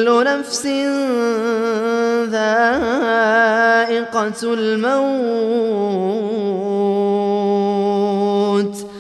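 Male reciter chanting the Quran in melodic tajwid style: one long drawn-out phrase with wavering, ornamented pitch, pausing briefly about four seconds in and trailing off near the end.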